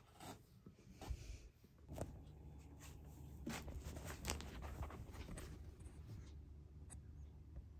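Faint rustling and scratching of fabric, with scattered light clicks, as a cat is stroked and shifts on its bedding. A low steady hum comes in about two seconds in.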